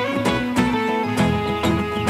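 Background music: instrumental notes over a steady beat of about two strikes a second.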